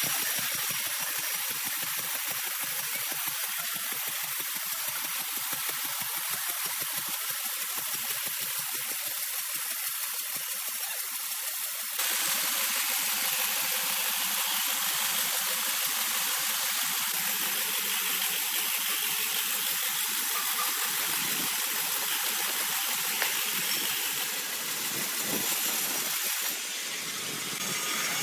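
Horizontal band sawmill cutting through a large green ironwood log: a steady hiss of the band blade in the wood, with the saw's motors running. It gets louder about halfway through and dips briefly near the end.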